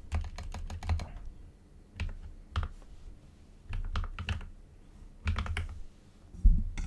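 Computer keyboard being typed on for ASMR: short runs of rapid key clicks separated by brief pauses.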